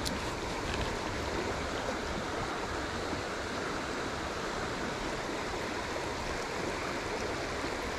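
A small river's flowing water, heard as a steady rushing.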